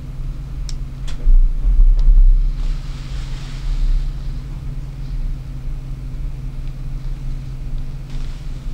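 A steady low hum runs throughout, with a few sharp clicks in the first two seconds. A loud low rumble on the microphone comes about a second in and lasts about a second.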